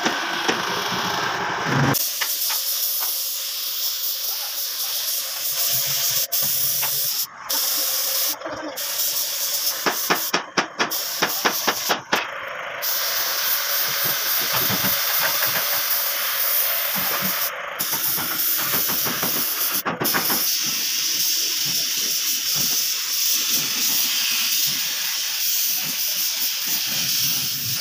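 Compressed-air paint spray gun spraying: a steady high hiss that starts about two seconds in and breaks off briefly several times, with a run of sharp clicks near the middle.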